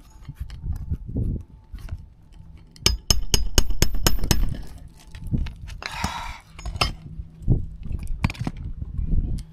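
Pneumatic roofing nail gun firing a rapid run of sharp, ringing shots about three seconds in, followed by short hisses of air; the gun is driving the nails in at an angle instead of straight.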